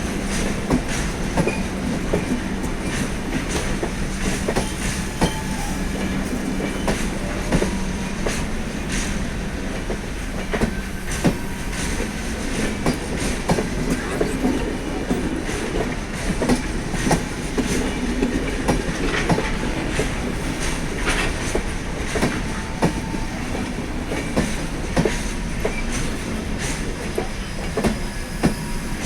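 Express passenger train hauled by a WAP-4 electric locomotive running along the track: a steady rumble with wheels clicking over rail joints.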